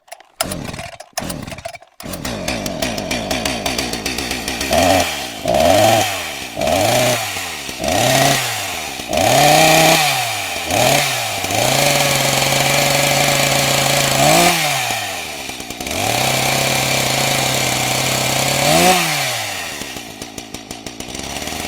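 Gasoline chainsaw engine cutting in and out for the first two seconds, then idling. It is revved in quick blips about once a second, held at high speed with two brief rev peaks, and dropped back toward idle near the end.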